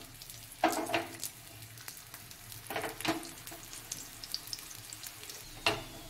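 Oil sizzling under a stuffed paratha frying on a hot tawa: a faint steady sizzle broken by several sharp spits and crackles.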